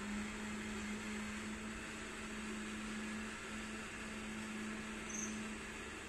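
Steady low mechanical hum at one pitch over a background hiss, with one brief high peep about five seconds in.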